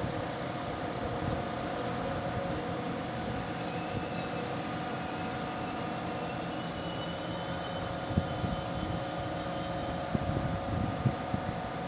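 Steady hum and whine of a locomotive standing at the station, with several steady tones over it. A few short low thumps come about eight and ten seconds in.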